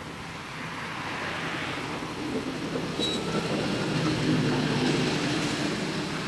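A passing motor vehicle, its engine and road noise growing louder toward about two-thirds of the way through, then fading.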